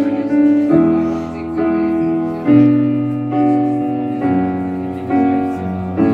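Live stage keyboard playing a slow run of held chords, a new chord about once a second, each fading a little before the next.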